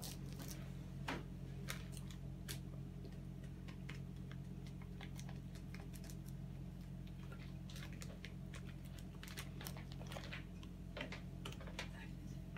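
Scattered faint clicks and rustles as a paper packet and a plastic bowl are handled on a table, over a steady low hum.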